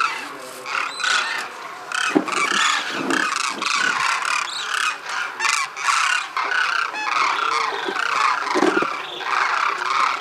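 A flock of demoiselle cranes calling in flight overhead: many overlapping calls with no break between them.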